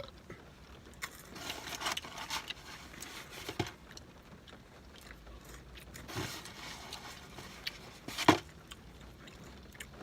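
A person chewing and smacking their lips close to the microphone, with scattered wet mouth clicks and one sharp, loud smack about eight seconds in.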